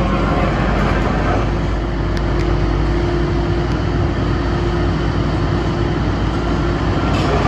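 Caterpillar 6050 face shovel's twin 12-cylinder diesel engines running as the machine crawls forward, its steel crawler tracks clanking and grinding over the tarmac. A steady whine sets in about a second and a half in and fades near the end.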